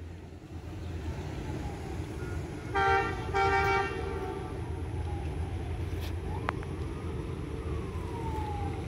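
Diesel locomotive air horn sounding two short blasts about three seconds in, a multi-note chord, over a steady low rumble as the train approaches the station.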